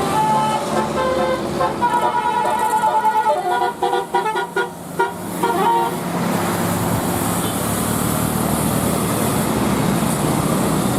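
Bus 'telolet basuri' musical air horn playing a tune of stepping notes, with a fast run of short repeated notes about three seconds in. After about six seconds the horn stops and steady engine and road noise takes over.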